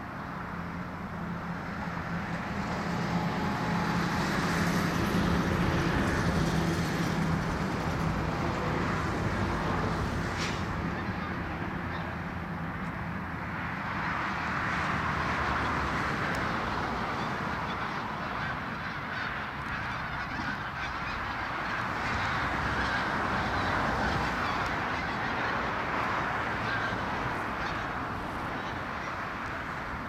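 A large flock of wild geese honking and calling together, a dense chorus as the birds lift off and fly. A low steady drone runs under the calls for about the first dozen seconds.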